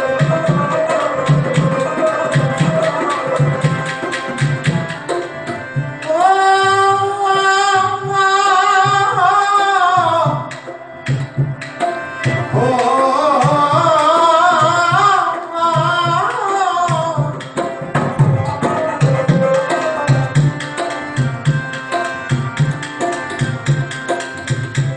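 Sikh devotional music: tabla keeping a steady, even rhythm under harmonium, with a singer's long, wavering held lines about six seconds in and again about twelve seconds in.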